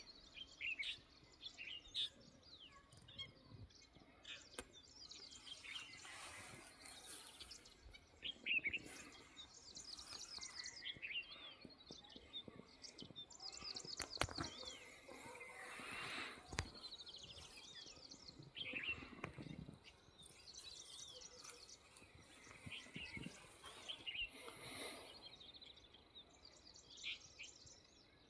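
Several small birds chirping and calling, with many overlapping short high chirps and quick chirp series throughout, and a few sharp clicks.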